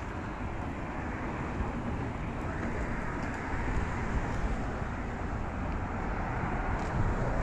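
Steady traffic noise of a busy city street: an even low rumble with a hiss above it.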